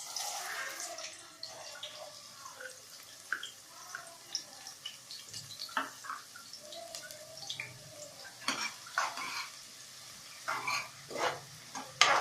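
Chopped onions sizzling in hot oil in a pan, loudest in the first second or two as they go in, with a spoon or spatula clinking and scraping against the pan as they are stirred.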